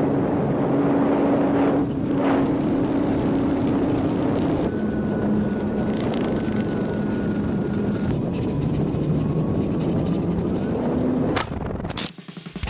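Road and engine noise inside a moving car: a loud, steady rumble with a low hum that steps down in pitch about five seconds in, cutting off suddenly near the end.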